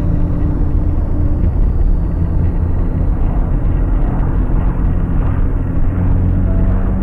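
Car driving along a road, with a steady deep rumble of engine and tyre noise and a faint steady engine drone under it.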